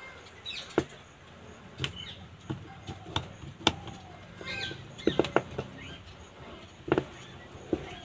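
Irregular sharp clicks and taps of steel tweezers on the metal antenna contact spring and frame of an opened itel keypad phone, about ten scattered ticks, as the lifted contact is pressed back into place.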